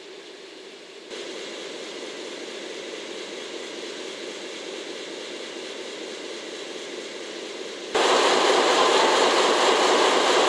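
JNR Class DE10 diesel-hydraulic locomotive's V12 diesel engine running as the locomotive rolls slowly past. The sound grows louder in two sudden steps, the second and much larger about eight seconds in, as the locomotive comes close.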